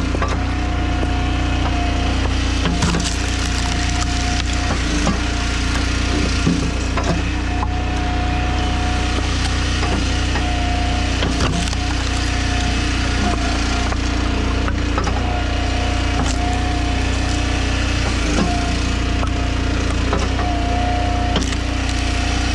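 Two-stroke chainsaw cutting wood under load, running at a steady pitch with scattered short clicks.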